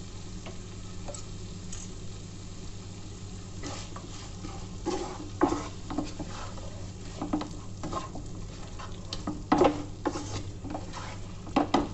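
Wooden spatula stirring and scraping chicken masala around a nonstick frying pan in irregular strokes, over a low sizzle from the pan.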